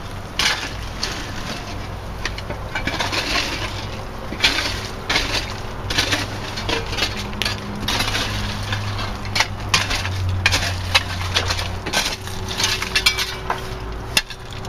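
Loose crushed stone and shale crunching and clinking in irregular sharp scrapes as stone is shoveled, over a steady low hum.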